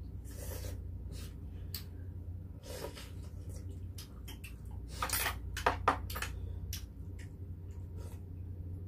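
Spoons and chopsticks clicking and clinking against stone soup pots and side-dish plates during a meal of beef short rib soup, amid eating noises, with a louder cluster of clinks about five to six seconds in.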